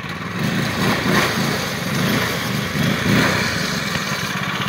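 A Murray go-kart buggy's 301cc engine, fitted with a stage 1 performance air filter, running as the buggy drives on snow, the sound swelling and easing several times as the throttle is worked.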